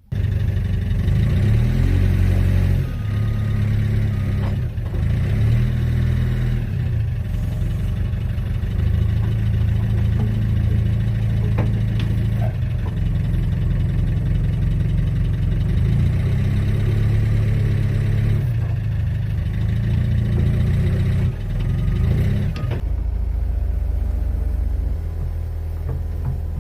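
Hitachi EX60 excavator's diesel engine running, labouring and easing repeatedly as the machine's hydraulics are worked, then settling to a steadier run for the last few seconds. A few sharp metallic knocks sound over it.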